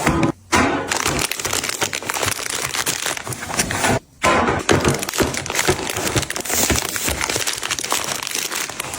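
Packaging crinkling and rustling as items are handled and unpacked, a dense run of crackles and small clicks that breaks off briefly twice.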